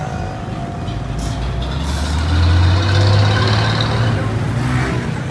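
A motor vehicle passing close by, its engine rumble swelling to a peak midway and fading again, over steady street noise.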